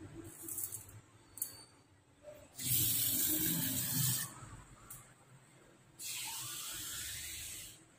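A stream of water poured into a steel pot of rice, urad dal and fenugreek seeds, splashing onto the grains. It comes in two pours: one about three seconds in, lasting a second and a half, then a steadier one from about six seconds in that lasts nearly two seconds.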